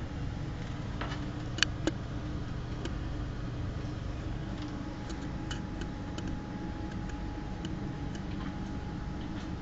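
Steady low background hum of a room, with scattered faint ticks and two sharper clicks a little under two seconds in.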